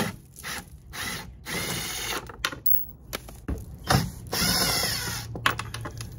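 Ridgid cordless driver spinning a 12 mm bolt out of a plastic engine underguard, in two runs: a longer one about a second and a half in and a shorter one near the end, with clicks of handling between them.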